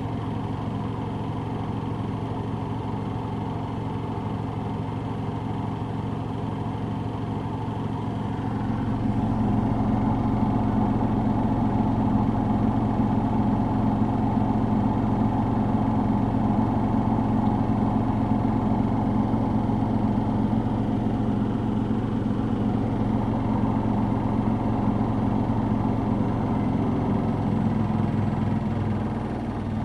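Samsung Ecobubble 8/9 kg washing machine with a digital inverter motor, on its final spin at 1400 rpm: a steady motor-and-drum hum that gets louder about nine seconds in and starts to drop and change near the end. The spin is slightly unbalanced.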